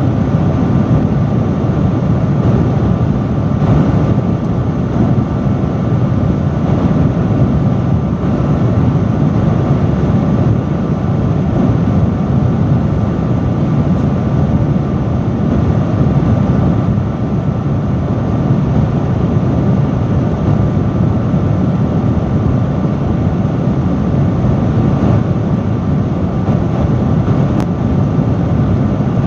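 Loud industrial fan running steadily, a constant rush of moving air with a faint steady hum.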